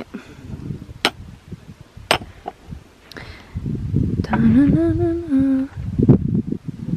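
A woman hums a short tune of a few held, stepping notes for about a second and a half, near the middle. A few sharp clicks come before it, and low rustling follows.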